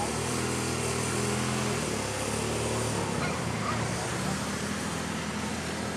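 Car driving: steady road and wind noise with a low engine hum that shifts in pitch a few times.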